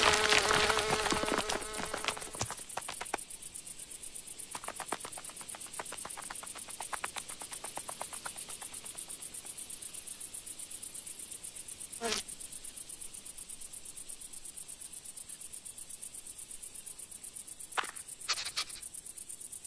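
Steady, high-pitched chirring of insects, pulsing rapidly and evenly, with a few brief sounds about twelve seconds in and near the end.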